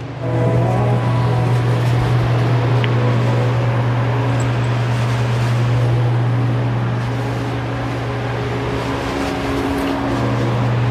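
A steady, loud low machine hum with a faint rising whine in its first second, dipping briefly near the end before carrying on.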